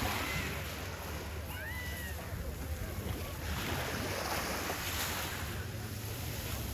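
Waves washing on a beach, with wind on the microphone and a steady low rumble underneath; the rush of surf swells about halfway through.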